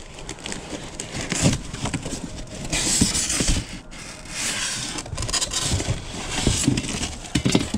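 Rummaging through boxes of stored belongings: uneven scraping and rustling, with a few knocks, the sharpest about a second and a half in and near the end.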